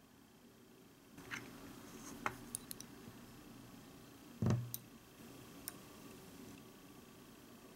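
A few light clicks of a tiny metal spoon against a small ceramic cup as beaten egg is scraped out of it, with one louder knock a little past halfway.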